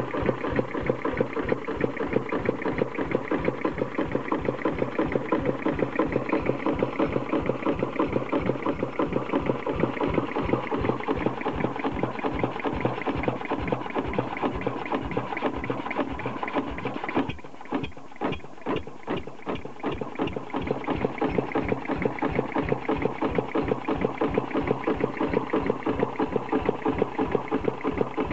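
Old single-cylinder stationary engine running with a steady, rhythmic firing beat. About two-thirds of the way through, the firing thins out to a few separate strokes for some three seconds, then the steady beat picks up again.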